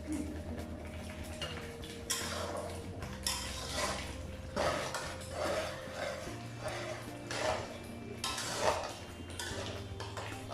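A spatula stirring and scraping in a pan of blended chili, garlic and shallot paste frying in oil, in uneven strokes about once a second. The paste is being fried until it turns crisp.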